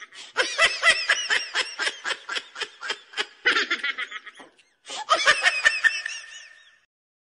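High-pitched snickering laughter added as a laugh sound effect after a joke's punchline: quick, even 'hee-hee' pulses about five a second. There is a short break partway through, then a second bout that fades out.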